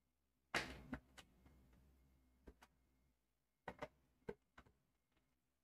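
Faint handling sounds of a screwdriver turning out a screw in the plastic body cover of a Singer Simple 3221 sewing machine: a brief scraping rustle about half a second in, then a few light ticks of the tool on the screw and plastic.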